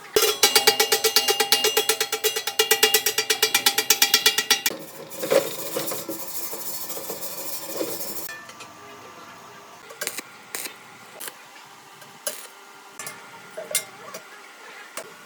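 Rapid metal strikes on steel, each ringing, for about four and a half seconds, followed by a few seconds of hissing noise and then scattered light knocks.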